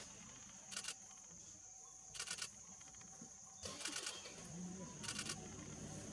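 Four short bursts of rapid clicks about a second and a half apart, a camera shutter firing in continuous mode, over a steady high-pitched insect drone.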